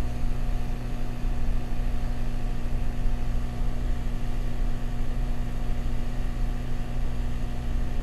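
Hot air rework station blowing open-ended, with no nozzle, at 415 degrees, making a steady rush of air with a low hum. It is heating a PS4 HDMI port to melt the solder holding it to the board.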